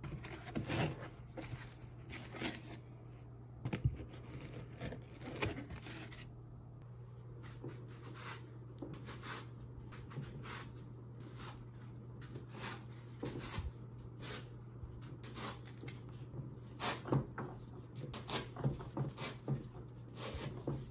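Foam inserts being pulled out of and pushed into a plastic hard rifle case: scattered soft scrapes, rustles and light knocks against the plastic shell. A low steady hum runs underneath.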